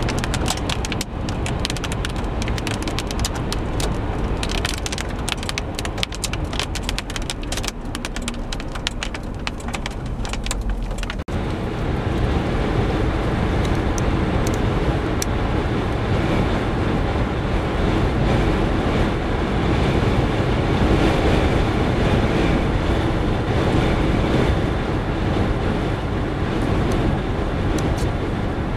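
Wind buffeting the microphone, a low rumble with dense crackling. About eleven seconds in it cuts to the steady road and engine noise of a car driving along a highway, heard from inside the moving vehicle.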